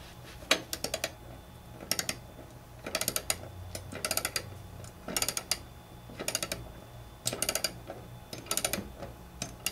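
Socket-wrench ratchet clicking as the mower's blade bolt is tightened: a quick string of clicks on each return swing of the handle, about once a second.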